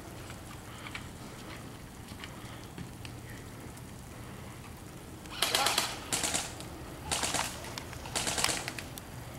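Airsoft gun firing four short bursts of rapid shots, each about half a second long, in the second half.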